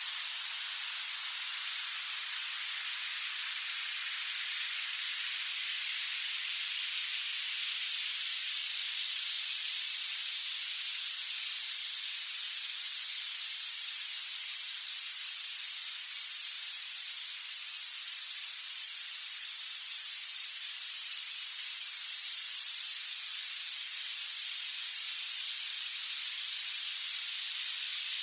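Violet noise: a steady, even hiss whose energy climbs toward the highest pitches, with no bass or midrange at all.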